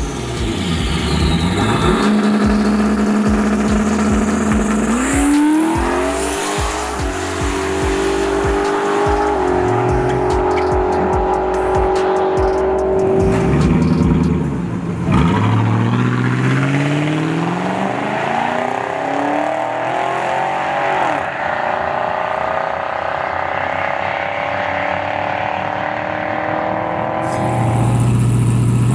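Drag-racing street cars' engines revving and accelerating hard down a dragstrip, one car after another. The engine pitch holds steady, then climbs and drops back several times as the cars pull through their gears.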